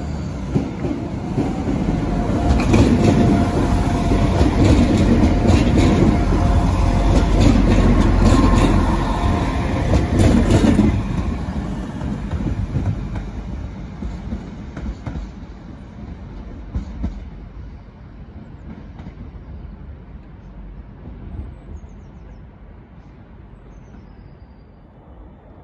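Transport for Wales diesel multiple unit running past along the platform, its wheels clicking over the rail joints. It is loudest over the first ten seconds or so, then fades steadily as it draws away.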